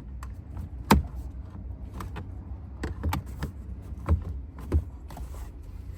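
Sharp plastic clicks and knocks as a 2016–2017 Chevrolet Malibu's climate control panel is pressed and snapped back into the dash, the loudest snap about a second in, over a low steady hum.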